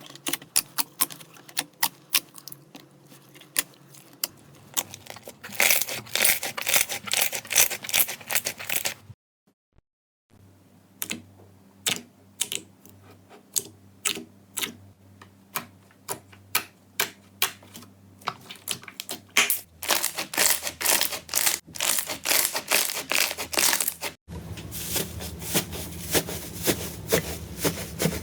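Slime being squeezed and pressed, giving rapid crisp clicks, pops and crackles. About nine seconds in the sound drops out for about a second, then the clicking resumes.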